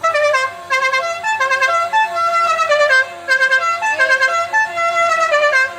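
Loud multi-note musical air horn on a Cadillac playing a tune: quick stepped notes in two phrases, with a short break about three seconds in, then it cuts off.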